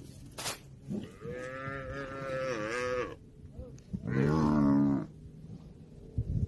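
African buffalo bawling: two long moo-like calls, the first wavering and dipping near its end, the second about a second later, louder and lower-pitched. These are distress calls from a buffalo calf and its mother under attack by lions.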